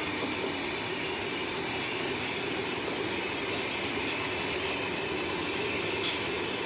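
Passenger coaches of an Indian Railways train rolling past close by: a steady rumble and rattle of wheels on the rails.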